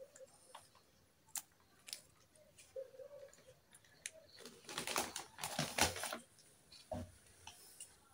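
Small plastic toy kitchen pieces clicking and clattering against each other and a hard tabletop as they are picked up and set down, with a denser run of clatter about five seconds in.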